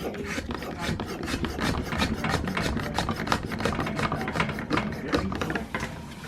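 Quick, repeated scraping and rubbing strokes, several a second, like something being rasped or rubbed back and forth.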